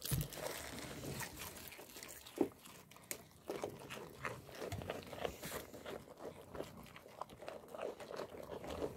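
Young rams biting and crunching raw cabbage close to the microphone, an irregular run of wet crunches and chewing.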